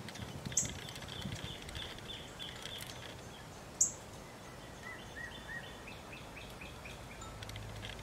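Songbirds calling: runs of quick repeated notes and two sharp high chirps, the louder one about four seconds in, over a steady hiss of outdoor background noise.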